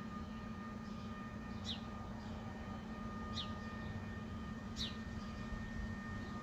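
Steady low industrial hum from a factory, with fainter steady higher tones over it. A bird gives three short falling chirps, evenly spaced about a second and a half apart.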